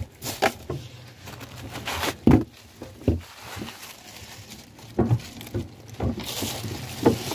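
Plastic bags rustling while the catch and bagged ice are shifted in a plastic cool box, with scattered knocks and thumps, the loudest about two seconds in.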